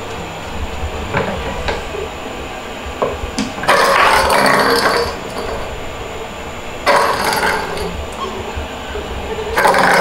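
Kittens scampering on a slatted wooden floor and batting a plastic cage ball toy, heard as three bursts of rattling and scuffling on the boards, with a few light clicks before them.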